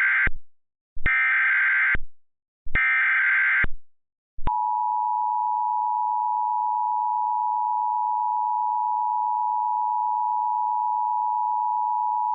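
Emergency Alert System SAME header: the tail of one short raspy digital data burst, then two more bursts about a second apart. About four and a half seconds in comes the steady two-tone EAS attention signal, which runs about eight seconds and stops abruptly. The sequence announces a tornado warning.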